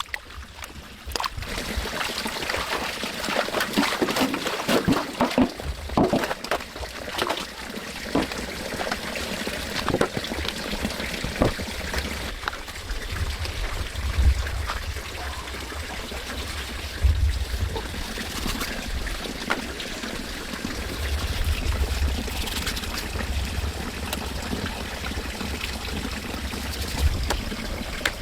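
Water trickling and pouring steadily, with scattered small knocks and clicks, most of them in the first half.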